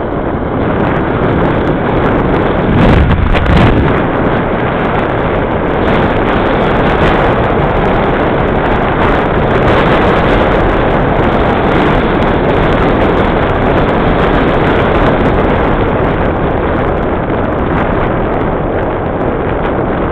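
Wind noise buffeting the microphone of a bicycle-mounted camera while riding, loud and steady, with a louder gust about three seconds in.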